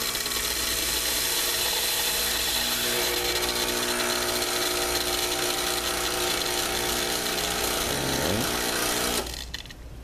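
Lavazza Espresso Point machine's pump running steadily as water is pushed through the unit to purge the air out, cutting off suddenly a little after nine seconds in.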